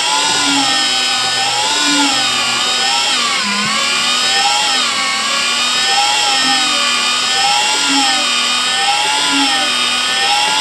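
Electric motor of an HDPE butt-fusion welding machine running steadily, its whine wavering up and down in pitch about every second and a half, with a low regular pulse at the same pace.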